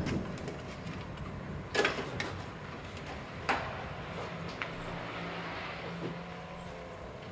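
Steady outdoor background noise with three short, sharp knocks about two, three and a half and four and a half seconds in, and a low, steady engine-like hum in the second half, which could be a vehicle.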